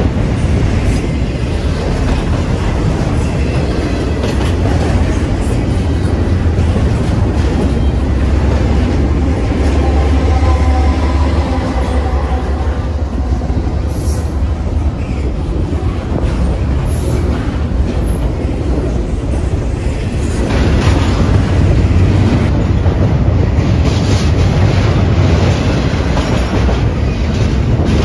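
Canadian Pacific intermodal freight train passing close by: autorack and double-stack container cars rolling past with a steady heavy rumble and rhythmic clacking of wheels over rail joints, the clacking more distinct in the last several seconds.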